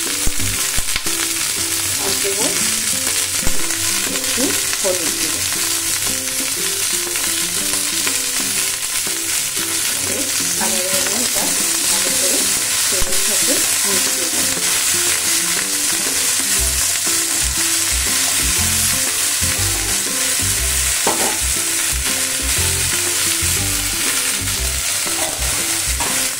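Cut okra sizzling steadily as it fries in oil in a pan, stirred now and then, with a sharp knock about three and a half seconds in.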